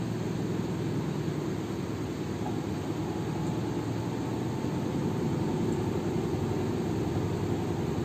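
Samsung 6.2 kg top-loading automatic washing machine running a wash cycle: a steady low hum of the motor and the churning of water and clothes in the tub, with no abnormal noise.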